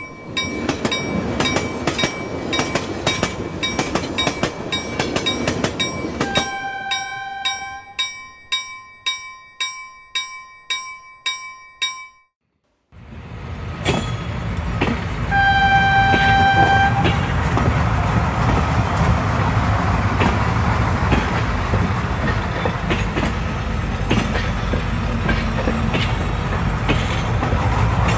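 Train horn blowing two single-note blasts, about 7 and 16 seconds in, over wheels clicking regularly across rail joints. The clicks fade out and the sound cuts off abruptly just past the middle, then comes back as a steady rumble of a passing train.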